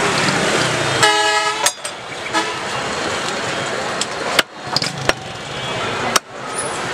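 Steady street traffic noise with a short vehicle horn honk about a second in, under a second long. A few sharp knocks follow in the second half.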